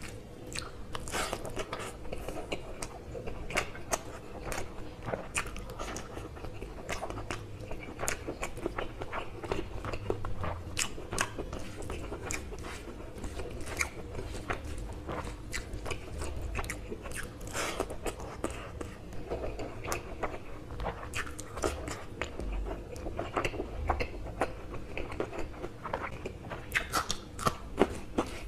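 Close-miked eating sounds: a man chewing and smacking mouthfuls of rice and curry eaten by hand, with frequent irregular sharp clicks.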